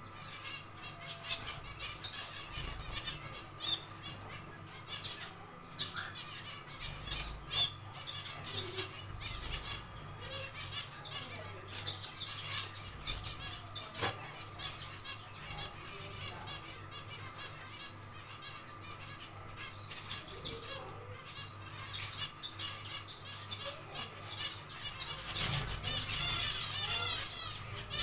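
Zebra finches calling with short chirps, which become a dense run of quick notes near the end. A steady hum runs underneath.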